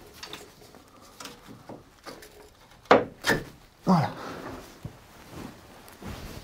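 Rusty steel engine-mount support bracket of a Peugeot 205 GTI being worked loose by hand and pulled out between the subframe and the engine: light scraping and rattling, with three sharp metal clunks about three to four seconds in.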